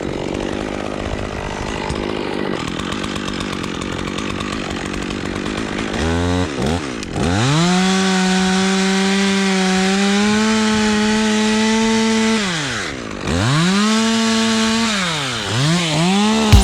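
Chainsaw running unevenly for about six seconds, then revved up to full throttle and held there for several seconds. The throttle is let off about thirteen seconds in, then the saw is revved back up and blipped down and up twice near the end.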